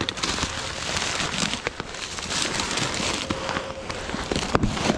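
A person pushing through thick dry brush on foot: branches and dry grass scraping and rustling, with many twigs snapping and crackling underfoot in snowy leaf litter.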